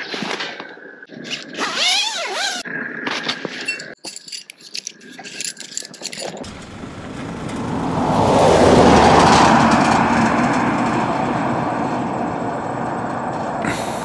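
A 4WD truck towing a boat trailer drives past, its engine and tyres building to a peak about nine seconds in, then settling into steady road noise. Before it, a few quieter short sounds with brief chirping glides.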